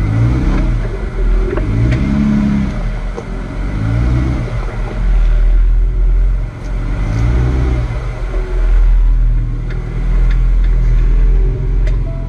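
Jeep Wrangler's engine revving up and falling back again and again as it crawls up a rock slope in low range, over a steady low rumble, with a few sharp clicks.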